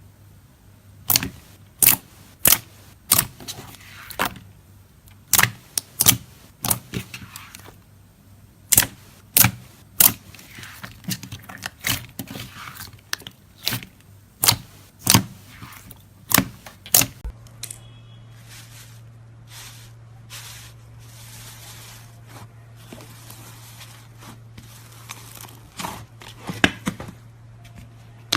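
Slime being poked and squished by hand: a run of sharp pops, one every half second to second, for most of the first half, then softer crackly squishing and stretching sounds.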